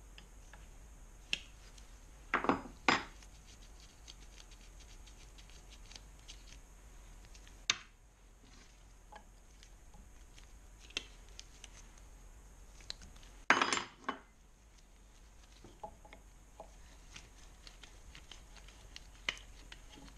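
Metal hand tools and small engine parts clinking and scraping on a workbench while the inspection caps on a Kawasaki KLR650 engine's side cover are taken off. Mostly scattered light clicks, with a short louder clatter about two and a half seconds in and another at about fourteen seconds.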